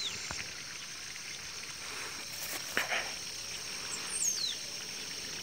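Rural outdoor ambience: a steady, high-pitched insect chorus, with a bird's quick falling whistle right at the start and again about four seconds in.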